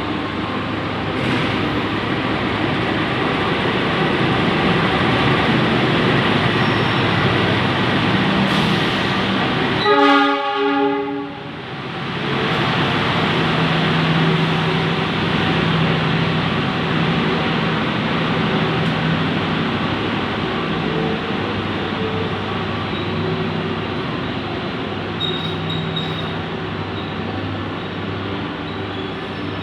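Train passing with a continuous loud rumble of wheels and running gear; about ten seconds in, the train horn sounds one short blast, the loudest moment.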